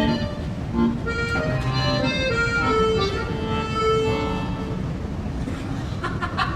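Accordion playing a slow melody of held notes, over a steady low background noise.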